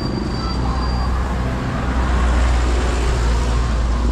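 Traffic noise on a street, as a motor vehicle drives past close by: a low engine rumble that grows louder about halfway through as it goes by. A thin high whine fades out about a second in.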